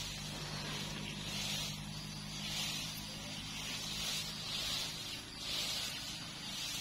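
Insects buzzing in a high hiss that swells and fades about once a second, over a faint low steady hum that dies away about halfway through.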